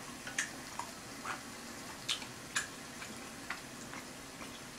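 Beef slices sizzling quietly on a tabletop griddle plate, with a few sharp, irregular pops of spitting fat.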